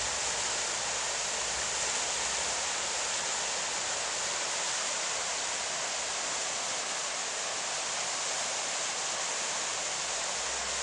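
River rapids: fast water rushing in a steady, unbroken hiss.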